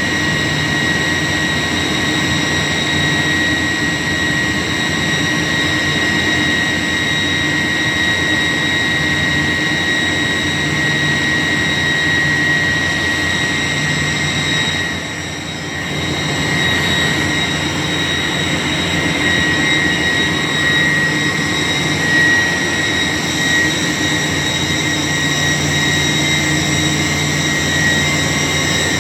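York YK 1000-ton centrifugal chiller running: a loud, steady machine drone with a constant high whine over a low hum, dipping briefly about halfway.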